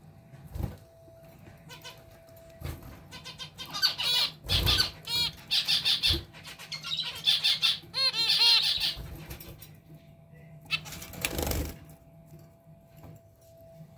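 Zebra finches giving bursts of short, repeated calls, thickest between about four and nine seconds in, with a few low thuds in between.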